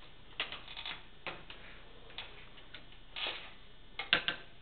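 Clicks and clatter of a wheelchair's metal footrests being handled and unlatched, in irregular knocks and short rattles, with a quick run of sharp clacks about four seconds in.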